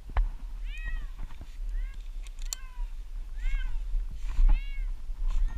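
A cat stuck up a tree meowing repeatedly, about five drawn-out meows that rise and fall in pitch, over a steady low rumble.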